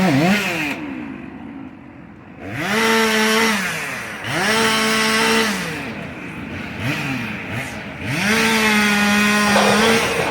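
Gas chainsaw revved to full throttle about four times, each burst held steady for a second or two and then dropping back to idle in between, as the crew cuts up a fallen tree.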